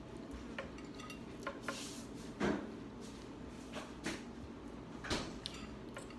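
A metal fork clinking and scraping against a ceramic plate while noodles and egg are picked up, in scattered separate strikes, the loudest about two and a half seconds in and another near five seconds.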